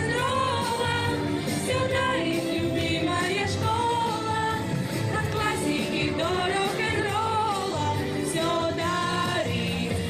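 Girls singing a song together, with musical accompaniment and a steady beat.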